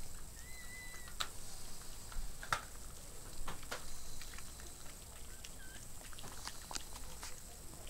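Yorkshire terrier mother licking and working at her newborn puppy's birth sac: faint scattered wet clicks, with a couple of short high squeaks about half a second in and again near the end.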